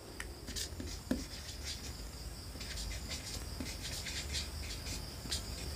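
Marker pen writing on a white board, a run of faint, short scratching strokes, over a low steady hum.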